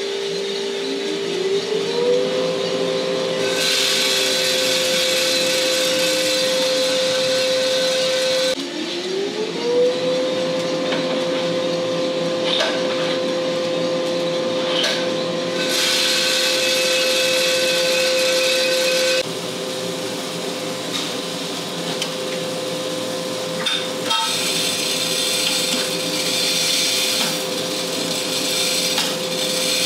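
An electric motor on coffee equipment spinning up, its whine rising in pitch and then holding steady, twice. The running sound changes abruptly a few times.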